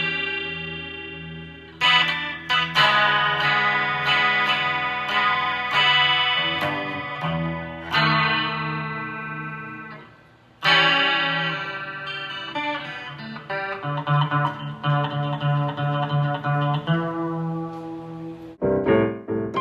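Guitar music: chords struck every second or two and left to ring out, with quicker picked notes in the second half.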